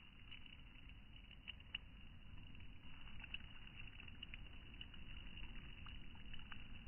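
Low wind rumble on the microphone, with faint, irregular small ticks and pattering scattered through it.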